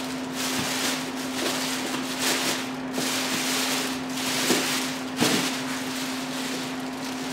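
A plastic bag crinkling and rustling in uneven bursts as it is pulled open around a styrofoam shipping cooler, over a steady low hum.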